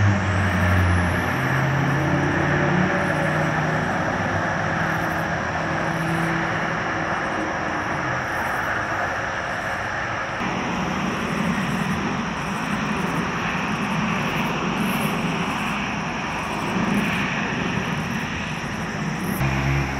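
A large engine running with a loud, steady rumble. Its low note shifts in steps for the first half, then gives way to a broader rush about halfway through.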